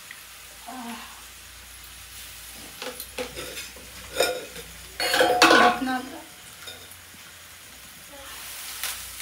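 Onion and spice paste sizzling in an iron kadai, with metal clinks and scrapes of a bowl and stirring utensil against the pan as the masala is added and stirred, loudest about five seconds in.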